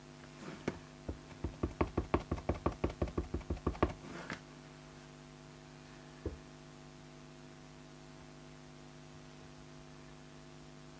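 Clear stamp on an acrylic block tapped quickly and repeatedly onto an ink pad, about six taps a second for some three seconds, followed by two single knocks as the block is set down and pressed onto the paper label. A steady electrical hum runs underneath.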